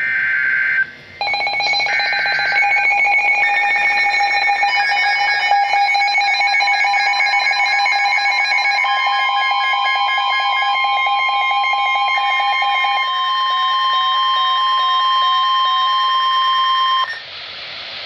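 Several NOAA weather radio receivers going off together for a severe thunderstorm warning. A short screech of the digital data header comes twice in the first few seconds, then the radios' overlapping beeping alarms sound. From about halfway through, the steady 1050 Hz warning alert tone joins in and stops shortly before the end.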